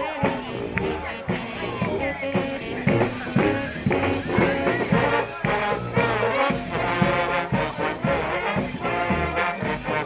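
Street brass band playing live: horns over a steady drum beat.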